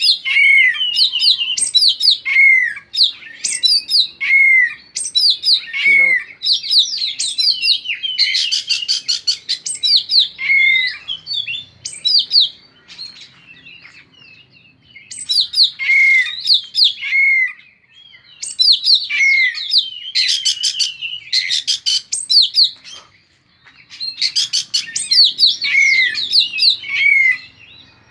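Oriental magpie-robin (kacer) singing loudly and continuously: repeated whistled notes that drop in pitch, mixed with fast buzzy rattles, in phrases broken by short pauses.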